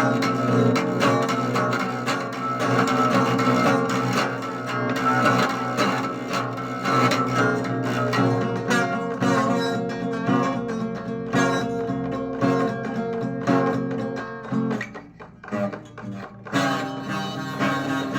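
Guitar music with plucked and strummed notes, dropping away briefly near the end before it picks up again.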